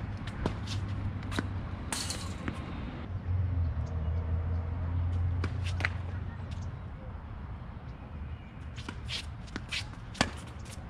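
Tennis ball struck by rackets and bouncing on an outdoor hard court during a rally: a string of short sharp pops, the sharpest about ten seconds in, over a steady low rumble.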